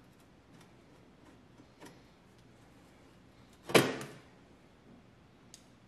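Light clicks and taps as the metal casing panel of a 1914 National Cash Register is worked loose by hand, with one much louder sharp knock a little past halfway.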